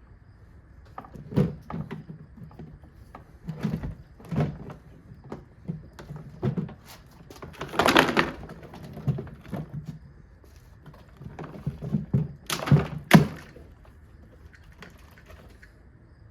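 A portable washing machine's plastic body being knocked and broken apart: irregular thuds and knocks. There is a longer cracking burst about eight seconds in, and the two loudest sharp blows come close together about three-quarters of the way through.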